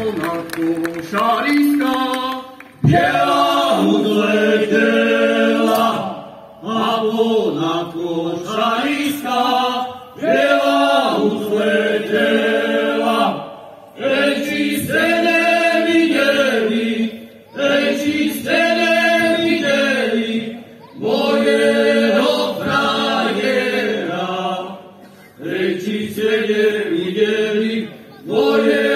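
A folk choir singing a Slovak folk song unaccompanied, in several voices together, phrase after phrase of about three to four seconds with short breaks between.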